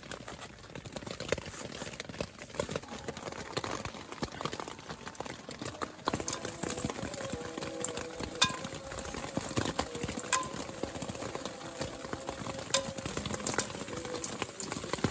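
A kitchen knife chops onion on a wooden cutting board in a run of quick knocks. After about six seconds, whole spices are dropped into hot oil in an aluminium pan: a few sharp clicks over a faint sizzle, with a faint steady tone underneath.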